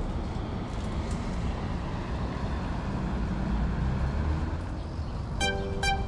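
Steady low rumble of outdoor background noise, like distant traffic; a melody of short electronic notes begins near the end.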